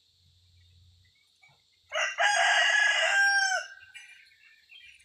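A rooster crowing once, about two seconds in: a short opening note, then a held call of about a second and a half that drops in pitch at the end. A faint steady high tone runs underneath.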